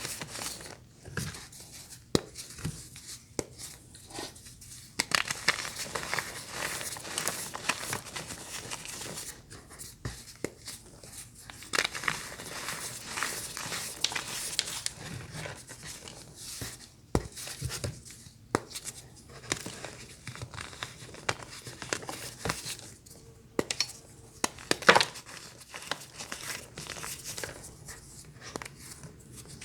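Crunchy ASMR material being squeezed and broken by hand, giving dense, irregular crunching and crackling with sharp snaps and short pauses.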